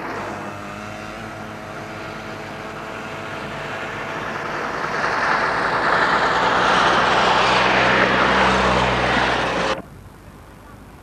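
Model T Fords' four-cylinder engines running as the cars drive towards and past, growing louder as one nears. About ten seconds in the sound cuts off abruptly to a much quieter background.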